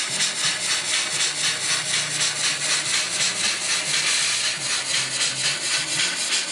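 Steam-locomotive chuffing from the DCC sound decoder of a Piko N-scale BR82 tank engine model, played through its small onboard speaker: quick, even chuffs, several a second, with a faint low hum underneath.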